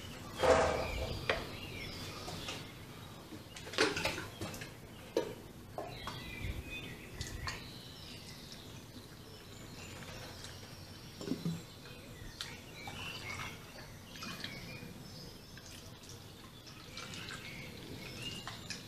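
Water trickling and dripping through a funnel and hose as a jug tops up a live-steam locomotive's boiler through its blowdown valve. Scattered light knocks and clicks come through, loudest about four seconds in.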